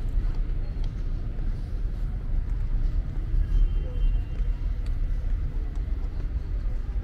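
Outdoor city ambience: a low, uneven rumble with no distinct event standing out.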